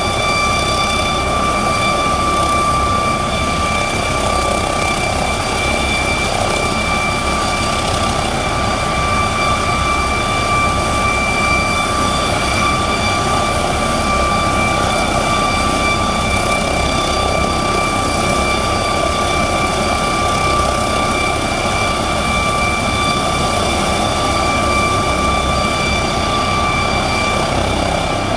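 McDonnell Douglas MD-900 Explorer helicopter running on the ground before take-off, its twin Pratt & Whitney PW207E turboshaft engines giving a steady high turbine whine over the rushing noise of the turning rotor. Near the end the whine shifts slightly in pitch.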